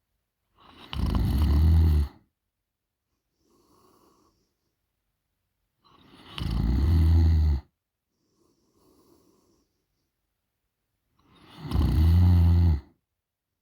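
A woman snoring in her sleep: three loud, low snores about five seconds apart, each lasting about a second and a half, with faint breaths between them.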